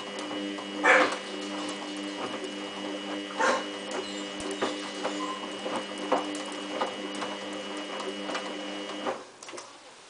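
Samsung WF8804RPA front-loading washing machine tumbling a wet sleeping bag during a rinse: a steady drum-motor whine with irregular thuds and sloshing from the load, the loudest about a second in. The motor stops about nine seconds in as the drum pauses.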